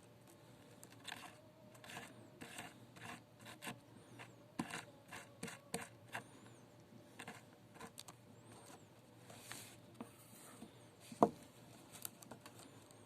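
Irregular short scraping and rubbing strokes of hand work on a small wire, several a second at first, then sparser, with one sharper knock about eleven seconds in.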